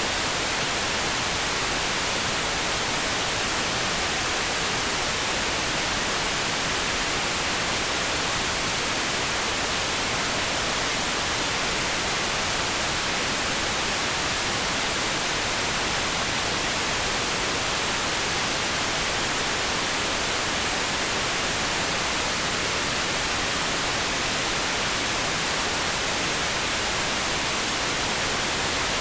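Steady synthetic pink noise: an even, unchanging hiss spread across the whole range, with no breaks or changes.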